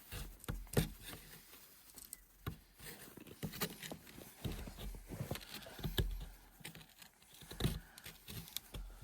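Irregular cracks, snaps and rustles of dry twigs and kindling being broken and handled by hand.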